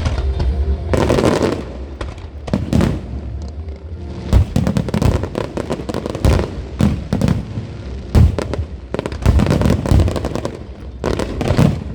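Fireworks display going off: a low rumble for about the first second, then a rapid, irregular string of bangs and crackling pops, several a second.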